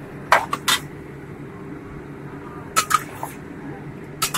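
Metal spatula scraping and clanking against a wok as chicken pieces are turned, in short clusters of sharp clicks about half a second in, around three seconds in and near the end, over a steady low hum.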